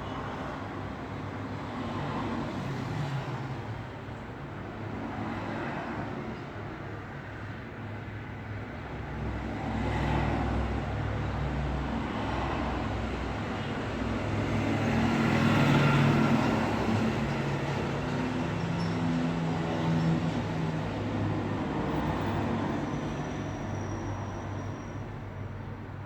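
Road traffic: a continuous rush of vehicles with engine hum, swelling as cars pass, the loudest pass about sixteen seconds in.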